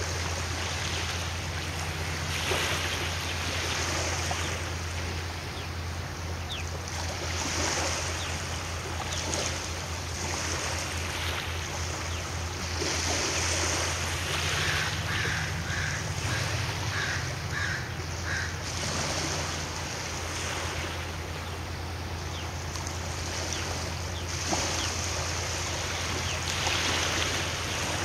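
Wind on the microphone and water noise over the steady low drone of a ferry's engines. About halfway through, a bird gives a quick run of seven or eight short, evenly spaced calls.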